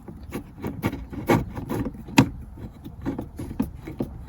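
Irregular clicks and knocks of a tool on a bolt as a replacement console lid is bolted to its hinge in a Toyota Camry, the sharpest about two seconds in.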